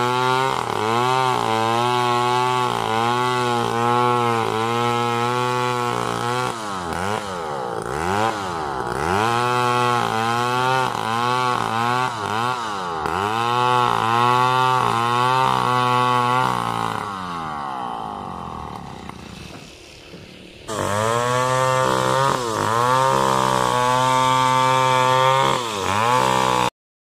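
STIHL two-stroke gasoline chainsaw cutting through coconut palm wood, the engine note dipping and recovering over and over, roughly twice a second, as the chain bites and frees. The saw fades quieter for a few seconds, is suddenly loud again cutting, and cuts off abruptly near the end.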